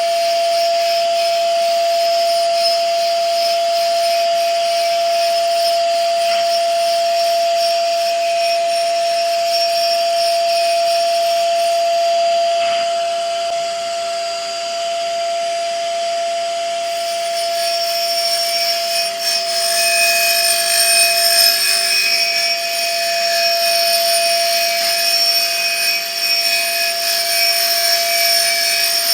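Surface grinder running: the spinning grinding wheel gives a steady whine over a hiss as it grinds the table surface. The grinding hiss grows louder about two thirds of the way through.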